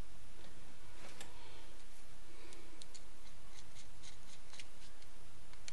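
Small carburetor being handled while its bottom cover is fitted: scattered light clicks and taps of metal parts against each other, with faint rubbing.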